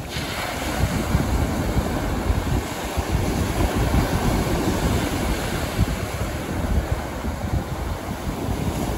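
North Sea surf washing onto a sandy beach in a steady rush, with wind buffeting the microphone.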